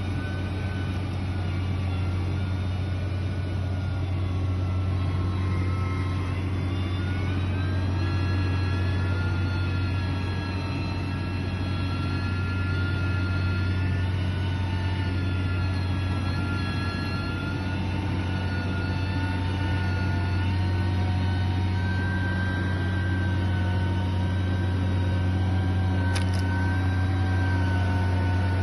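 Heavy construction machine's engine running steadily under load, with a whine that slowly rises and falls in pitch. A brief click near the end.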